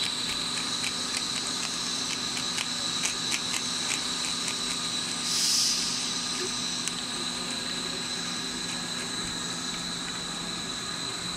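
Corrugated plastic pipe extrusion line running: a steady high-pitched whine and low hum from the corrugator and its blowers, with light regular clicking for the first few seconds and a brief hiss about five seconds in.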